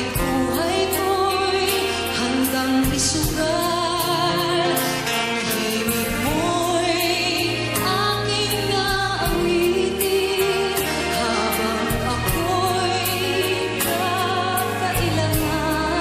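Woman singing live into a handheld microphone, her voice wavering with vibrato on held notes, over a band accompaniment with sustained bass notes.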